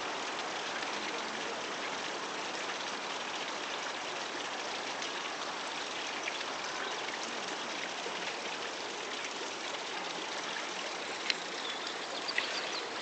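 Steady hiss of running water, with two faint clicks near the end.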